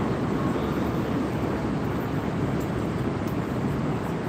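Steady low rumble of city street traffic noise, with no distinct events.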